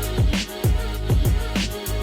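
Background music: a hip hop style beat with a deep, falling bass drum about twice a second and hi-hats.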